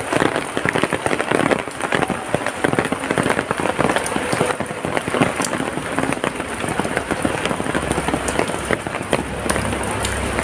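Heavy rain falling: a dense, steady patter of drops hitting surfaces. A low rumble comes in near the end.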